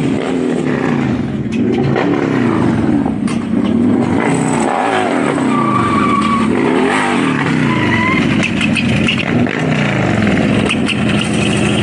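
Several mini bike engines running and revving at once, their pitches rising and falling across each other.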